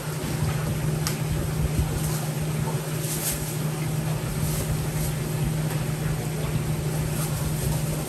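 Steady drone of commercial kitchen machinery: a constant low hum with a rushing noise over it, and a few light clinks now and then.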